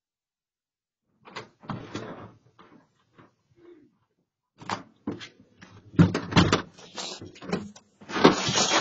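A house front door being opened: irregular clicks and knocks from the latch and door, loudest about six seconds in, then a louder rush of noise near the end as someone steps out.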